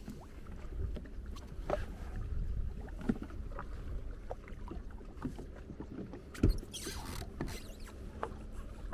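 Small waves lapping against a jet ski's hull, with scattered light knocks and creaks from the craft and fishing gear; the sharpest knock comes about six and a half seconds in, followed by a short hiss.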